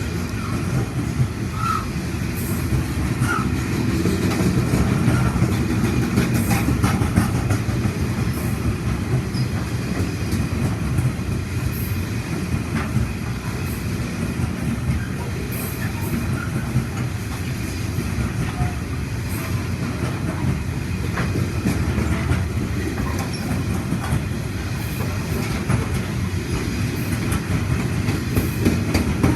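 Wagons of a freight train hauled by LDP class locomotives rolling steadily past, a continuous rumble of wheels on rail.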